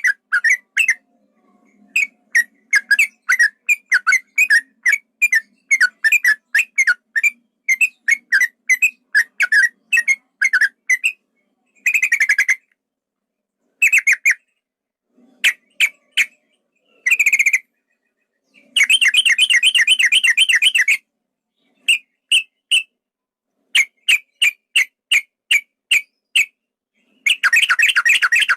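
Male yellow-vented bulbul singing: quick series of short, bubbly whistled notes, broken by rapid rolled trills, the longest lasting about two seconds.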